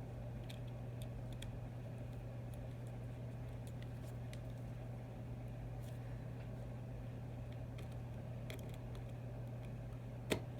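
Faint small clicks and taps of tools and tiny metal and plastic parts as an iPhone 6's vibrating motor is fitted back into the phone, with a sharper click near the end, over a steady low hum.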